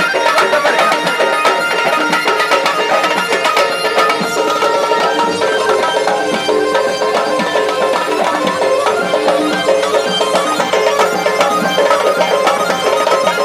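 Tunisian traditional folk music played live, with drums keeping a steady beat under melodic instruments.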